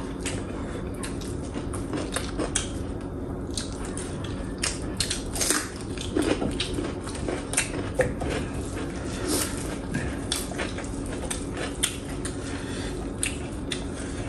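Close-miked eating sounds: crunchy bites and chewing with frequent short clicks and clinks of a plate and utensils.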